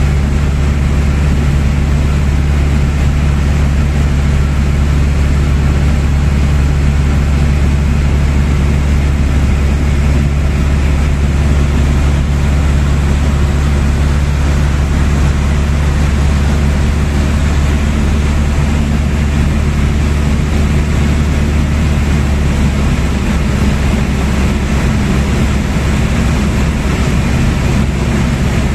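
Steady, loud low drone of a light aircraft's engine heard inside the cabin in flight, with no change in pace.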